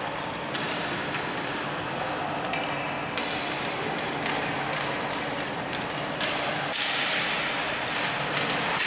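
Hockey sticks clacking and tapping against the ball and the ice in a boot-hockey game, scattered sharp knocks echoing in a large rink hall, with players' distant calls. About seven seconds in, a louder hissing rush joins.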